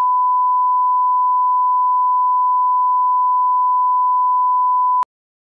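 Broadcast line-up tone played with the colour bars: a single steady, unwavering beep, the audio reference for setting levels at the head of the programme tape. It cuts off suddenly about five seconds in.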